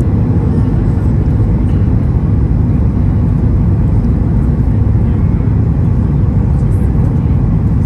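Steady low rumble of a Boeing 737 MAX 8 in descent toward landing, heard inside the cabin at a window over the wing: its CFM LEAP-1B engines and the rush of air around the fuselage, unchanging throughout.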